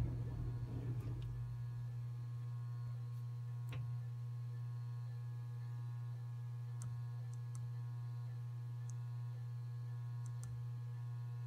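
Steady electrical hum with a faint high whine from the traffic signal controller and its cabinet equipment. A few faint, light clicks are scattered through it.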